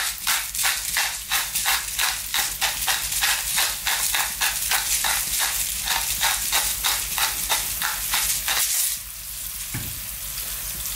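Hand-twisted pepper mill grinding black pepper in a quick, even rhythm of crunching strokes, about three a second, over diced onion and celery sizzling in olive oil. The grinding stops about nine seconds in, leaving only the frying sizzle.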